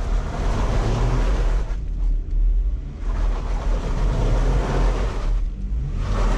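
Jeep Wrangler's engine running as it crawls slowly over rocks, with a steady low hum. A rushing noise over it swells and drops away twice.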